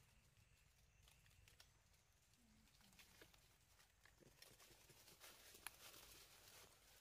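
Near silence with faint crackling of dry leaf litter: scattered small clicks that grow busier about halfway through.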